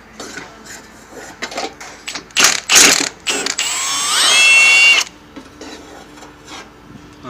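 Wrench work on the exhaust header nuts: a run of ratchet clicks and metal knocks, then a power tool's motor whining up in pitch and holding for about a second and a half before stopping suddenly.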